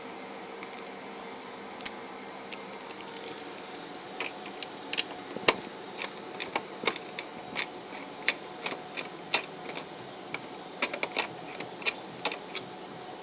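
Irregular light clicks and taps of a screwdriver and small screws against the PlayStation 3's metal parts as the screws holding its board are taken out, coming in clusters with one sharper click about five and a half seconds in. A faint steady hum runs underneath.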